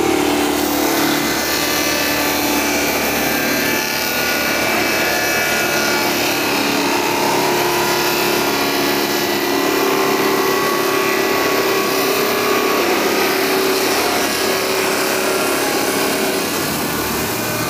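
Electric-motor-driven sawdust making machine running steadily, its cutters grinding wood logs into sawdust. A dense, even grinding noise with a steady hum and whine running through it.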